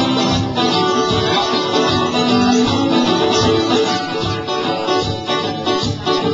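Live acoustic folk music: a strummed acoustic guitar together with a smaller plucked string instrument playing a steady instrumental passage.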